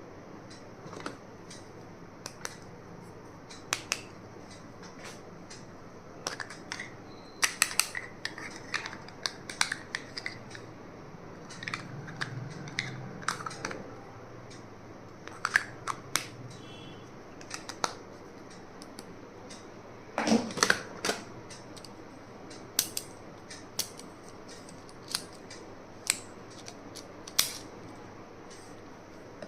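Hands unpacking stationery: scattered sharp clicks and taps with short stretches of rustling as packaging and small plastic items are handled, over a steady faint hiss.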